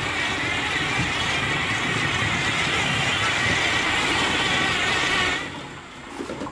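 Tracked rescue robot's electric drive motors and tracks running steadily, dying away about five seconds in.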